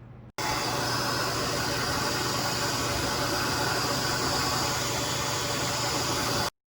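Hair dryer running steadily with a motor hum and whine; it starts abruptly just after the start and cuts off sharply near the end.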